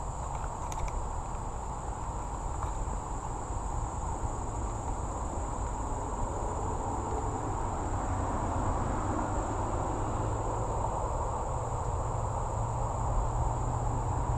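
Insects droning steadily at a high pitch over a continuous low rumble and an even hiss, growing slightly louder in the second half.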